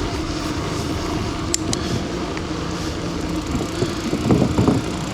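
Mountain bike riding on wet pavement: steady tyre and road noise with a continuous low hum, and a couple of sharp ticks about a second and a half in.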